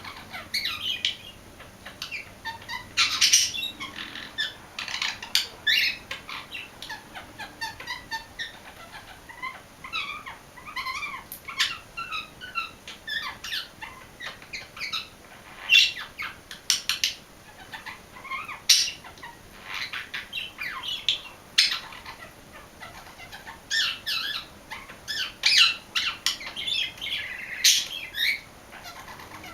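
English budgie singing a long chattering warble of quick chirps and twitters, broken by loud sharp calls now and then. The uploader says the song imitates an Indian ringneck parakeet.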